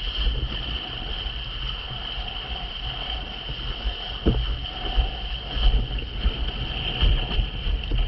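Wind buffeting a camera microphone on a windsurf rig planing at speed, with water rushing and splashing past the board. A steady high whine runs throughout, and there is one sharp knock about four seconds in.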